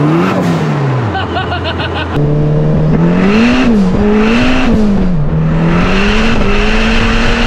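Turbocharged Polaris Slingshot's four-cylinder engine pulling hard on the road, its pitch climbing and dropping back several times.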